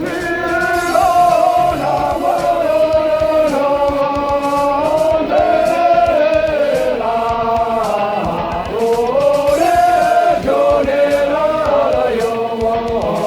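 Tamang wedding guests singing a traditional song together as a group, men's and women's voices holding long notes that step up and down in pitch.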